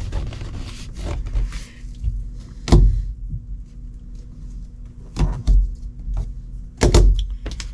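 Hands pressing and smoothing the glued vinyl covering onto a car's package tray: rubbing and rustling of the material, with a few sharp knocks against the board and body, the loudest about three seconds in and again near the end.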